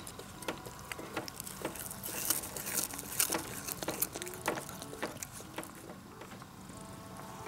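A domestic cat biting and chewing blades of cat grass: an irregular run of crisp crunching clicks, densest a couple of seconds in and thinning out near the end.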